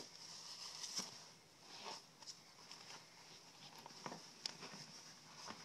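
Faint, scattered clicks and short scrapes of a knife cutting a pheasant's wing off at the joint.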